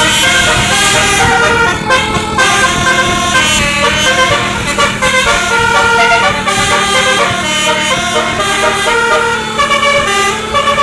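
Basuri telolet multi-tone horn on a tour bus playing a tune in quick, stepped notes over a steady low hum.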